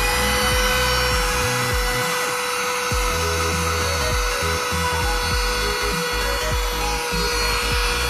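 Handheld cordless 3-in-1 car vacuum cleaner running, its small motor giving a steady high whine as the nozzle sucks grit from the car carpet.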